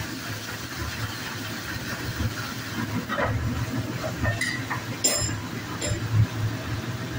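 Onion tadka sizzling in a steel kadhai over a high flame: a steady hiss with a low rumble. From about three seconds in come a few metallic clinks and scrapes of a steel spatula against the pan.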